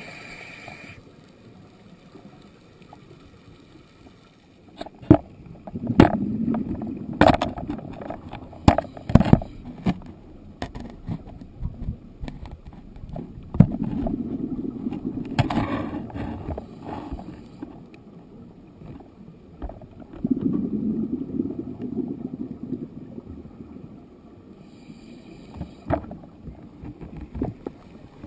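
Scuba diver's exhaled bubbles, heard through an underwater camera, bubbling past in bursts of about three seconds, one breath every seven seconds or so. Sharp clicks and knocks come in between, mostly in the first third.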